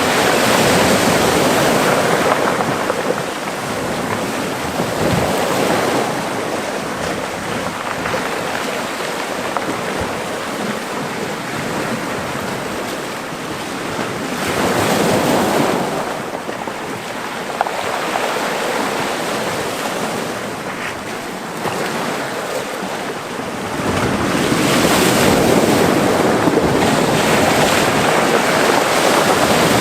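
Mediterranean sea waves washing into a small rocky cove, a steady surf wash that swells with each wave, louder near the start, about halfway through, and over the last few seconds.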